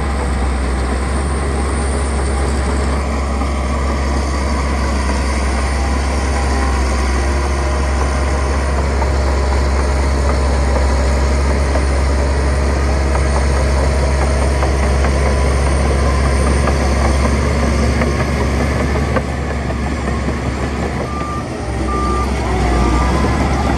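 Heavy diesel engine of earthmoving machinery running steadily under load, with a reversing alarm giving a few short, evenly spaced beeps near the end.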